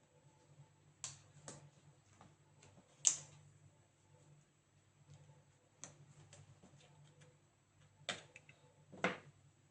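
Scattered sharp clicks and taps of tools and small parts being handled on an HP EliteBook 850 G8 laptop during disassembly, the loudest about three seconds in and twice near the end, over a faint steady low hum.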